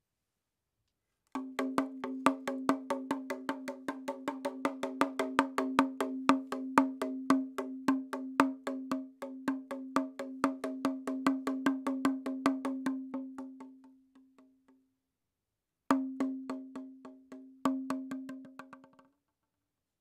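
Background music: a fast run of wood-block clicks, about six a second, over a held note. It comes in about a second in and dies away about two-thirds through, then returns for a few seconds near the end.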